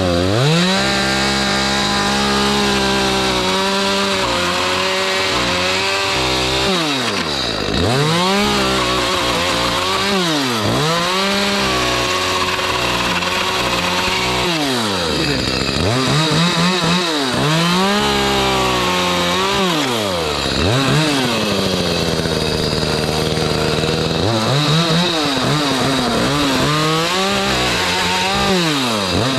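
Echo CS310 two-stroke chainsaw revved to full throttle and cutting pallet wood. Its pitch drops back several times between cuts and then climbs again. It runs and cuts cleanly after a carburetor cleaning and tune-up.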